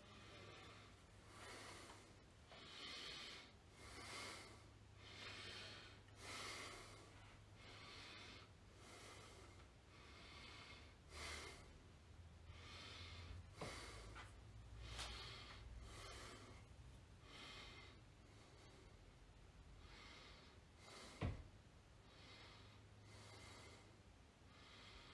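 A man breathing hard and rhythmically through a set of cable exercises, about one breath a second, faint over a low steady hum. A single thump about 21 seconds in.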